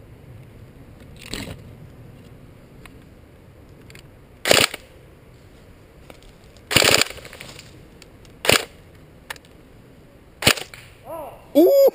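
Airsoft gunfire close by: a faint crack, then four loud sharp cracks a couple of seconds apart, one of them a short rapid burst.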